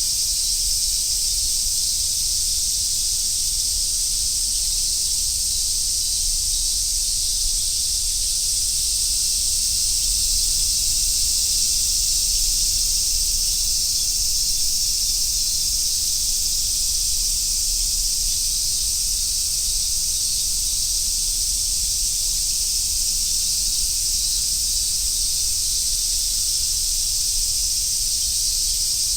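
Chorus of summer cicadas, a dense, steady, high-pitched buzzing with no breaks.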